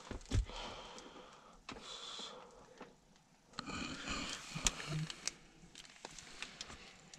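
Handling noises from the plastic dash cam and its windscreen mount: a knock near the start, two spells of rustling, and several sharp plastic clicks.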